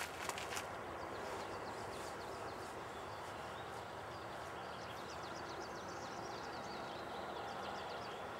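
Quiet outdoor ambience: a steady hiss with small birds chirping over and over. A few footsteps on gravel in the first half second.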